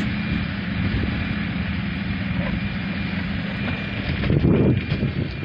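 Tracked excavator's diesel engine running steadily, with a faint thin high whine over it; louder low rumbles come in near the end.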